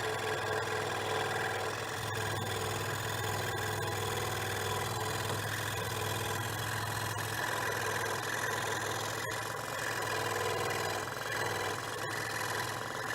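Harbor Freight 16-inch scroll saw running steadily, its motor and reciprocating blade making a constant hum with a buzzy vibration.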